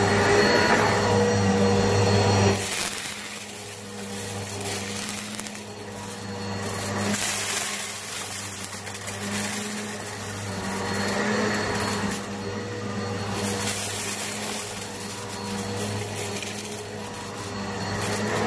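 Eureka PowerSpeed upright vacuum running on carpet, with a steady motor hum and whoosh that swells and fades as it is pushed back and forth. Fine crackling comes from dirt and debris being sucked up. The sound drops noticeably about two and a half seconds in.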